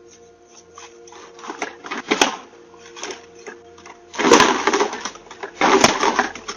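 Rattling, crunching bursts of noise over a steady low hum, the loudest two about four and six seconds in, each lasting around half a second to a second.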